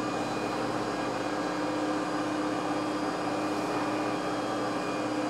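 Motor-generator test rig running at a steady speed: a DC drive motor turning a hand-blender motor by belt as a generator, under load from lit bulbs. A steady tone with a hiss over it.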